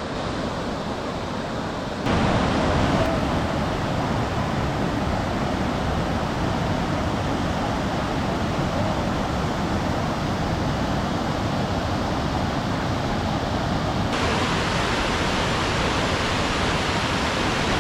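Mountain creek waterfall rushing steadily, a loud even hiss of falling water. The level jumps about two seconds in and the sound brightens near the end.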